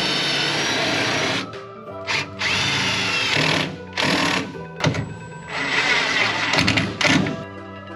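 Cordless drill running in several bursts of one to two seconds, one spinning up with a rising whine, as it drives screws into a wooden wall stud. Background music plays underneath.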